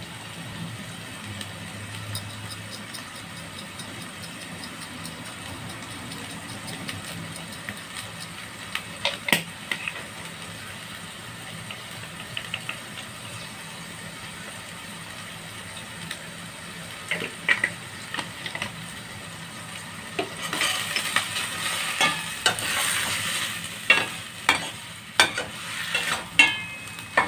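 Shrimp paste with tomatoes sautéing in a stainless steel pan: a steady low sizzle, with a metal spatula now and then clinking and scraping against the pan. In the last several seconds the stirring gets busier, with louder sizzling and a run of metal clinks.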